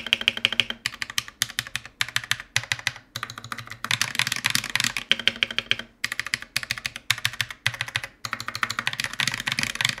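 Akko CS Vintage White linear mechanical switches typed on in fast runs with short pauses, giving a clicky, insanely poppy sound. Most of the switches are pressed bare, without keycaps. The switches are stock (unlubed) at first and lubed later on.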